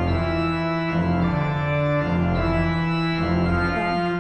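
Organ played with hands and feet: sustained chords on the manuals over a bass line of separate pedal notes that change about once a second. The playing stops near the end.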